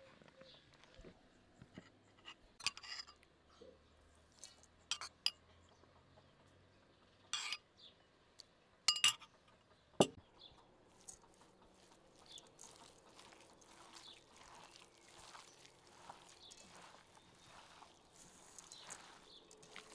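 Several sharp clinks and knocks of dishes in the first half, the last with a short ring. Then the soft, wet squishing of a hand kneading dolma filling of minced meat, rice and chopped herbs in an enamel bowl.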